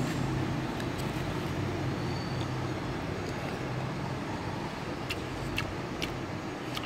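Steady road traffic with a low engine hum, and a few light clicks of a plastic spoon against a foam food box.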